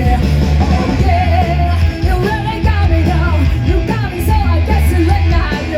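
Loud rock music with a singing voice, electric guitar and a heavy bass line.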